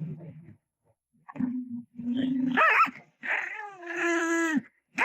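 A dog grumbling and 'talking back': low growly grumbles, then a whining yowl that rises in pitch, and a longer drawn-out howling whine.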